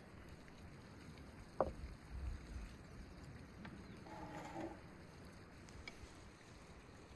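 Quiet outdoor ambience with a faint steady rush of background noise. A single sharp knock, the loudest sound, comes about a second and a half in, with a few soft thumps after it, and a brief pitched sound follows about four seconds in.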